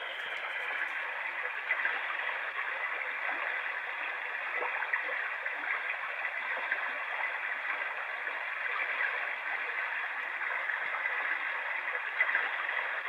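Small NURSAL white noise machine's speaker playing a looped running-water sound: a steady hiss with small crackling splashes, thin and without bass.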